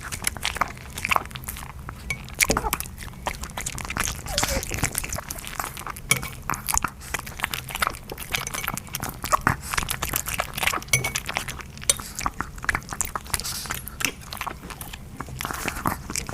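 Yorkshire terrier puppy eating, a fast run of small chewing and crunching clicks with occasional clinks.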